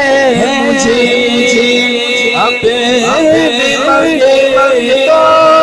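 A man singing an Urdu devotional naat into a handheld microphone. The voice glides through ornamented melodic turns, then settles into a long held note about five seconds in.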